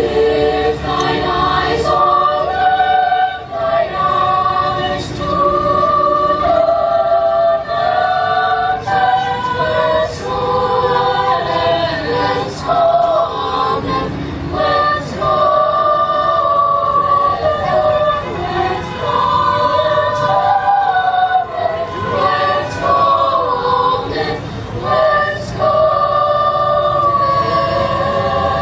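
Youth choir singing in several voice parts, holding long notes that move together.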